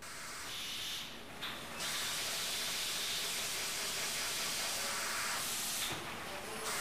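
A steady hiss, brighter from about two seconds in and briefly dipping near the end.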